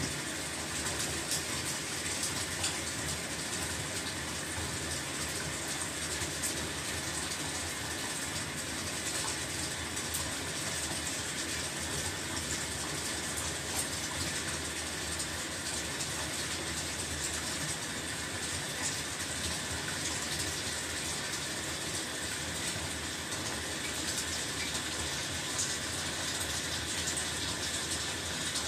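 Water running steadily into a bathtub, a constant rushing hiss with small splashes here and there.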